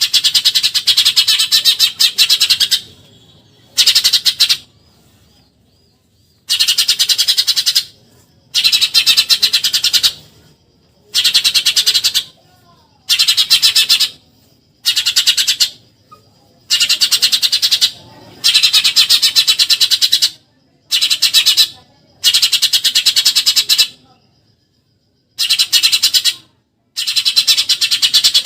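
Eurasian tree sparrow giving its rapid machine-gun chatter ('tembakan nyerecet'): loud, high bursts of fast repeated notes, each a second or two long, about a dozen bursts broken by short pauses.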